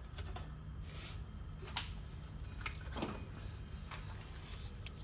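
Transmission parts being handled on a workbench: a few light, sharp clicks and knocks, scattered irregularly, over a low steady hum.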